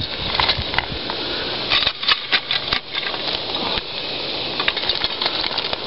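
Hot coals tipped from a shovel onto the tin lid of a coffee-can Dutch oven, a run of sharp clicks and clinks about two seconds in over a steady hiss.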